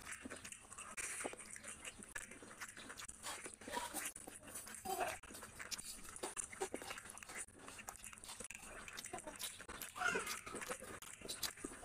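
A person chewing a mouthful of fish curry and rice eaten by hand, in a string of short, wet mouth clicks and smacks. Near the end, fingers work rice into curry on the plate.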